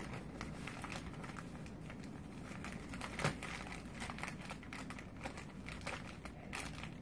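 Crinkly rustling of disposable diapers and a plastic-wrapped pack of nursing pads as the pack is pushed in under a ribbon, made of many small irregular crackles with one sharper one about three seconds in.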